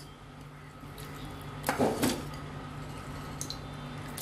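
Raw mutton pieces dropped into a pressure cooker of liquid and cooked offal, making a soft wet plop about two seconds in, with faint small clinks of a metal ladle against the pot over a low steady hum.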